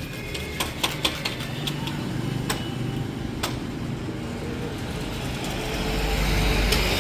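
Street traffic with engines running and scattered light clicks, and a vehicle passing close, getting louder near the end.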